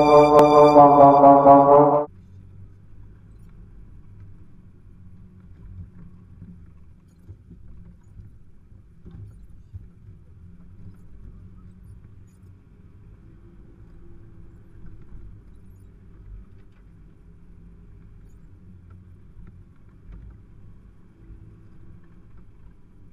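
Music cuts off abruptly about two seconds in. Then a 4x4's engine runs steadily, heard from inside the cab as a muffled low rumble with no higher sounds, and a few faint knocks.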